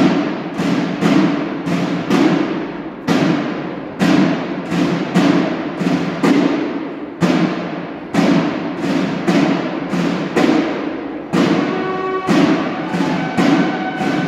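Marching drums beating a ceremonial cadence, about two strokes a second with short pauses, each stroke echoing in the large hall. A short held tone sounds briefly near the end.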